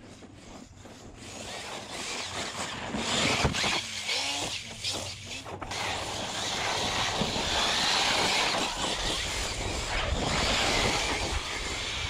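Arrma Talion 6S brushless RC truck driven hard over hard-packed dirt: motor whine and the rush of tyres throwing dirt, faint at first and growing louder about two seconds in as the truck comes close.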